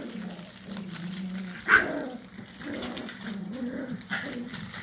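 Miniature schnauzer puppies at play, with one sharp, loud yip a little under two seconds in and a fainter one near the end.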